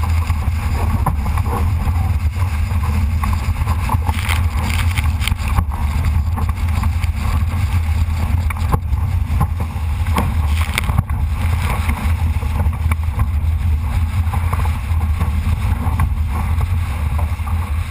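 Strong wind buffeting a GoPro's microphone aboard a Solo sailing dinghy under sail: a steady low rumble over the rush of water along the hull. A few sharp slaps come now and then.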